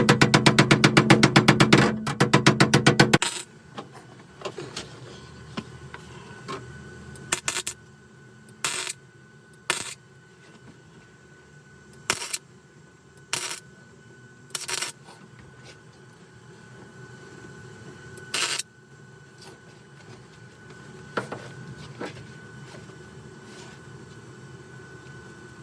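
Short bursts of MIG welding on the sheet-steel floor pan, each crackle lasting a fraction of a second, about ten of them spaced irregularly. These are stitch welds laid in different spots to keep the thin pan from burning through. Loud rhythmic music plays over the first few seconds and cuts off about three seconds in.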